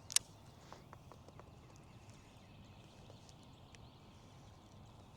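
A single sharp click just after the start, then faint, irregular small clicks and knocks of fishing gear being handled on a kayak, over a low steady hum.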